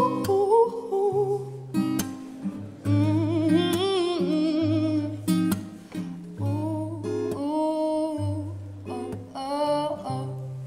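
Acoustic guitar strummed in steady chords under a woman's voice singing long held notes, one with clear vibrato in the middle.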